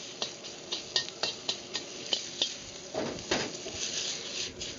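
A metal utensil clacks against a wok about four times a second while chicken stir-fries over a gas wok burner at full flame. About three seconds in, a longer scrape gives way to steadier sizzling.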